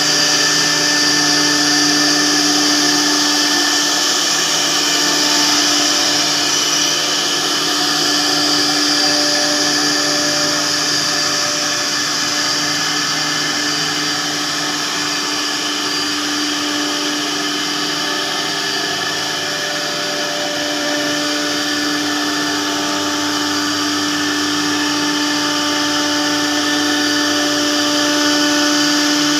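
CNC router spindle running and cutting a wood-plastic composite (WPC) door panel: a steady whine over a loud, even cutting hiss.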